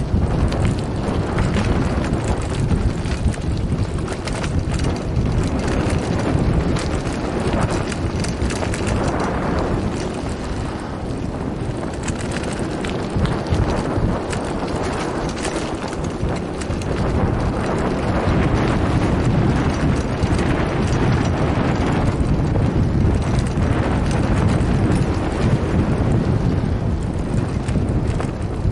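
Wind buffeting the microphone while a mountain bike rolls over a gravel road, with a constant crunch and rattle of tyres on loose stones and a clattering bike.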